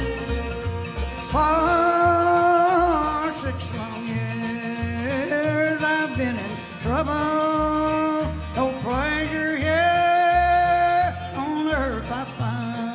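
Bluegrass song: a lone voice sings four long phrases, each sliding up into held notes, over a string band with a steady plucked bass line.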